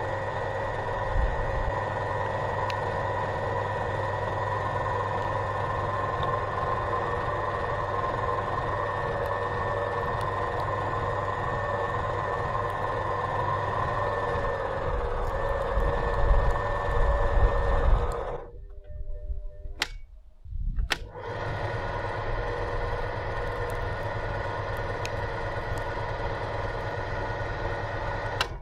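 Motor-driven meat grinder running through its drive gearbox with a steady whine over a low rumble while plastic toy pyramid rings are fed into its hopper. The sound grows louder with some cracking about two-thirds in, then cuts out briefly twice.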